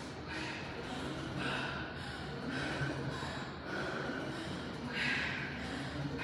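A woman breathing hard and loud through her open mouth during a high-intensity cardio interval, about one heavy breath a second, over a steady low hum.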